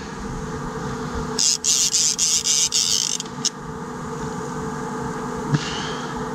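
Fishing reel whirring in a bright, finely pulsed burst of about two seconds while a big fish is played on a heavily bent rod, with a shorter, weaker burst near the end, over a steady low hum.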